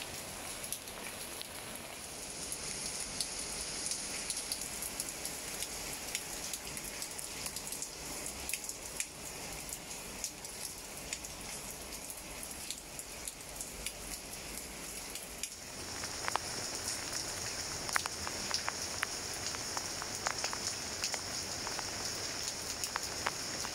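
Steady rain falling on leaves, with individual drops tapping. About 16 seconds in the sound changes, and the drop taps become sharper and more frequent.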